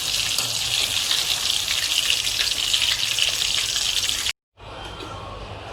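Chicken pieces deep-frying in hot oil on their second fry for crispness: a steady sizzle that cuts off abruptly about four seconds in, leaving a quiet background.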